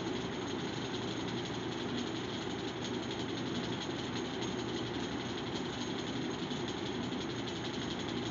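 A steady, unchanging mechanical running noise with no speech.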